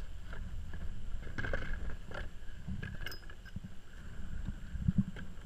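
Water lapping against the plastic hull of a Hobie Pro Angler 12 kayak, with scattered small clicks and knocks from gear being handled on board.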